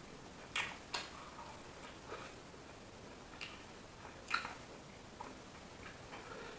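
A person eating close to the microphone: irregular wet smacks and clicks of chewing, about one every half second to a second, the loudest about four seconds in.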